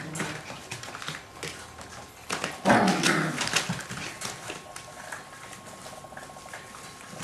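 Kooikerhondje puppies in a newspaper-lined pen. One puppy gives a loud short yelp about three seconds in, over light scratching and rustling of paws on the paper.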